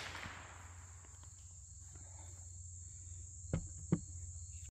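The echo of a .22 rifle shot dies away over a steady high chirring of insects. About three and a half seconds in come two sharp knocks, a little under half a second apart.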